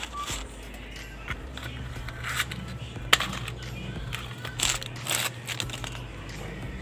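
Scattered short scrapes and knocks from hands working at a tricycle sidecar wheel's hub, with a steady low hum underneath from about a second and a half in until about six seconds.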